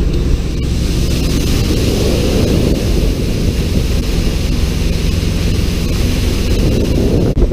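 Wind buffeting the microphone on the open flybridge of a diesel trawler cruising at speed, over the steady low drone of its engine and the rush of its wake. The noise drops out briefly near the end.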